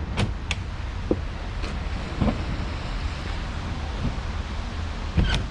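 Steady road and engine noise of a moving vehicle heard from inside the cabin, with a few brief clicks near the start and near the end.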